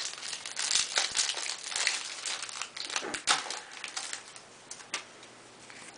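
Foil wrapper of a Yu-Gi-Oh booster pack crinkling as it is opened, a dense crackle with sharp clicks that dies down about five seconds in.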